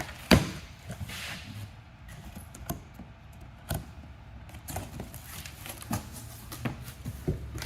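A large cardboard box being opened and handled, with scattered knocks and the rustle of packing material.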